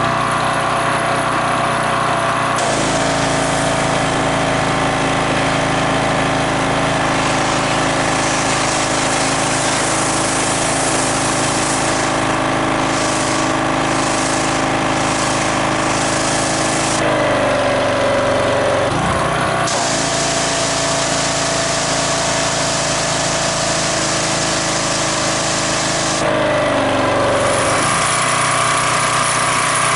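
Gas pressure washer's small Briggs & Stratton engine running steadily and driving the pump, with the hiss of the water jet while the wand sprays. The engine note shifts briefly about 17 and about 26 seconds in, as the spraying pauses.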